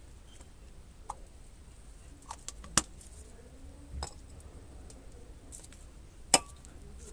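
Scattered light clinks and taps of small hard objects being handled, with two sharp clicks, one close to three seconds in and a louder one a little after six seconds.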